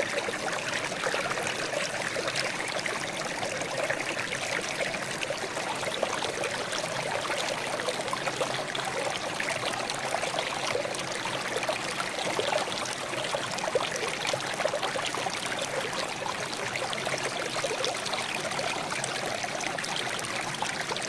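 Water trickling and babbling steadily, a constant burble of many small splashes.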